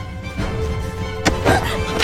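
Tense drama score with held tones over a low pulsing bed, and a sharp knock about a second in.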